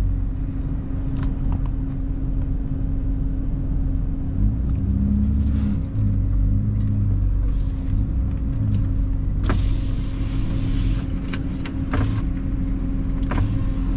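4x4 SUV engine running steadily at low speed, heard from inside the cabin as a low rumble with a steady hum. A rushing hiss comes in from about nine and a half seconds for a couple of seconds.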